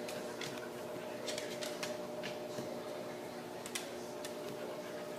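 A steady low hum, like a household appliance or fan, with scattered faint light clicks.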